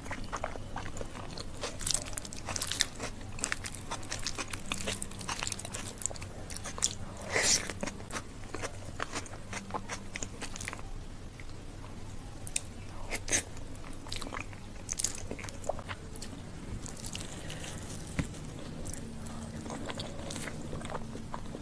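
Close-miked chewing of handfuls of soft rice mixed with mashed bharta, full of wet mouth clicks and smacks coming several times a second.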